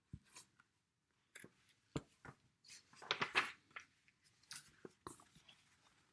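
Paper rustling and light knocks as a picture book's page is handled and turned, with a louder rustle about three seconds in.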